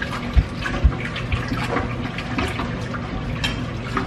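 A large stainless-steel stockpot of milk-and-roux sauce being stirred as it heats toward a boil: the liquid sloshes, with small irregular clicks and scrapes of the spoon against the pot. Two dull knocks come in the first second.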